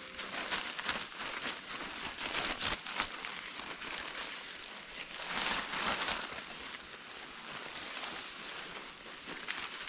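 Rustling and crackling with scattered sharp clicks, with a louder swell about five to six seconds in.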